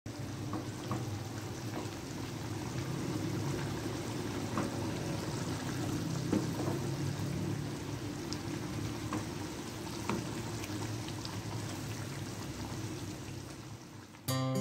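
Thick coconut-milk prawn gravy simmering and bubbling in a frying pan while a wooden spatula stirs it, with scattered light clicks. Acoustic guitar music cuts in at the very end.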